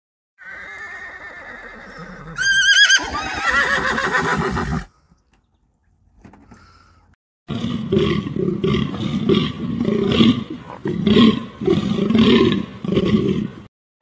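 Zebra calling: a wavering, whinny-like call that grows louder about two seconds in and breaks off, then after a pause a fast run of harsh, repeated barking calls.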